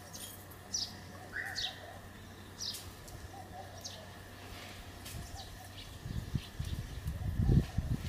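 Small birds chirping: short, high, falling chirps about once a second over faint steady background noise. A low rumbling noise comes in about six seconds in and grows louder near the end.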